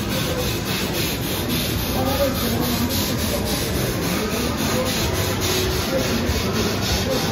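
Ferris wheel turning: a steady, rhythmic rubbing and scraping from its drive, about four strokes a second, with faint fairground voices underneath.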